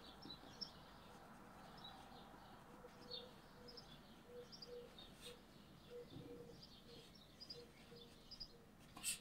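Near silence: quiet room tone with faint, scattered high chirps and a single soft click near the end.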